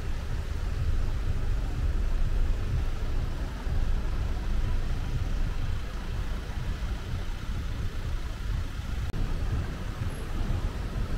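City street traffic: a low, uneven rumble of cars running on the road, with a faint haze of street noise over it.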